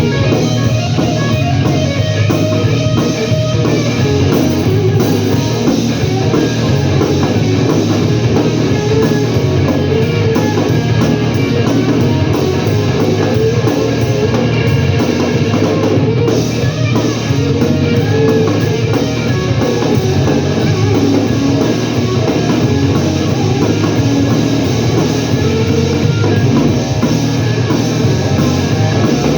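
Live blues-rock music: guitar-led, with a drum kit, played steadily with no singing.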